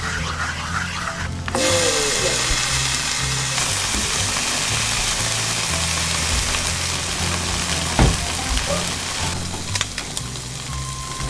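Chopsticks stirring scrambled eggs in a nonstick frying pan, then bacon sizzling loudly in the pan from about one and a half seconds in; the sizzle drops away near the end. A single knock sounds about eight seconds in, and background music with a steady bass line runs throughout.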